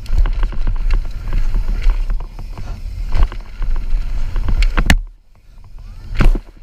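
Mountain bike descending a rough bike-park jump trail: heavy wind rumble on the camera mic, with rattles and knocks from tyres, chain and suspension. Near the end there is a sharp knock as the bike leaves the ground, the noise falls away for about a second in the air, and a loud thud marks the landing.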